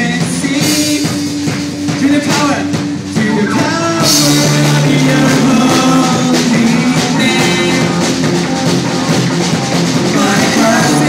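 A live rock-style worship band playing, with electric guitars and drums under a lead singer on a microphone; the band comes in fuller and a little louder about four seconds in.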